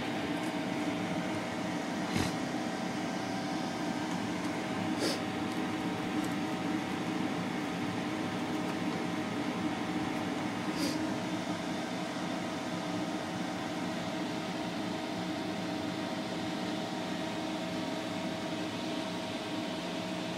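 A steady machine hum with a few faint clicks scattered through it.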